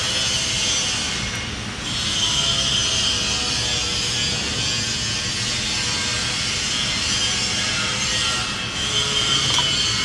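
Steady machine noise: a constant hiss over a low hum, dipping briefly about a second and a half in.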